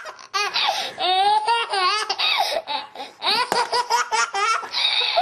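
A baby laughing hard, in several high-pitched bouts of laughter with short breaks between them.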